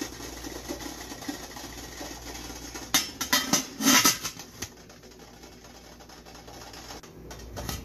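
Stainless-steel lid being set on an idli steamer pot: a few light metal clinks about three seconds in, then a louder clatter of metal on metal a second later, over a faint steady hiss.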